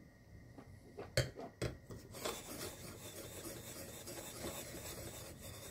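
A wine glass set down on a kitchen countertop with two clicks, then swirled by sliding its foot around in circles on the counter: a steady rubbing scrape of glass on the countertop from about two seconds in.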